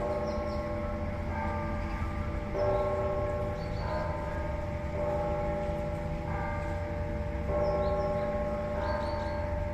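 Church bells ringing, several bells struck one after another with a new stroke about every second and a quarter, each note ringing on under the next.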